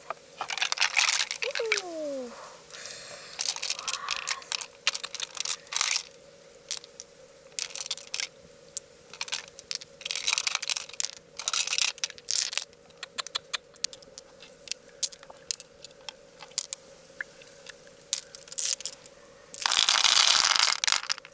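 Handling a freshwater mussel and picking through it: a run of irregular clicks, crackles and short scrapes, with a brief falling squeak early on and a louder rustling rush near the end.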